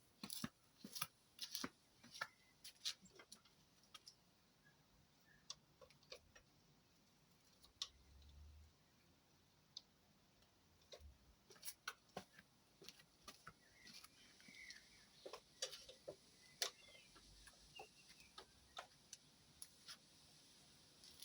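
Near silence broken by scattered, irregular faint clicks and ticks, with a few faint bird chirps; no engine is running.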